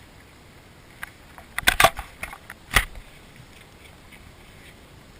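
A quick cluster of clicks and knocks about two seconds in, followed by one sharp knock a second later, over a quiet background.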